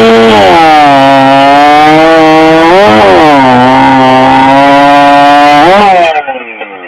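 Competition two-stroke chainsaw at full throttle making two cuts through a log: the engine pitch drops as the chain bites and holds through each cut, rising between cuts and again as the bar comes free. The saw sound stops abruptly about six seconds in.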